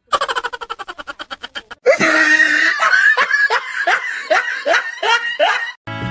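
Hearty laughter: first a quick run of short giggles, then louder rhythmic belly laughter of about three bursts a second, cutting off sharply near the end.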